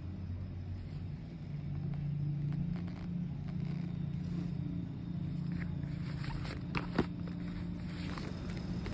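A low steady motor hum with a faint pitched drone, under the light rustle of a glossy book cover being handled and a sharp tap about seven seconds in.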